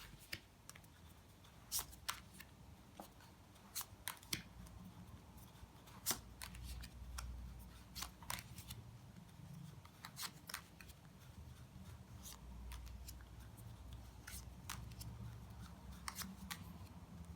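Tarot cards being turned over and laid down one at a time: light card snaps and taps at irregular intervals.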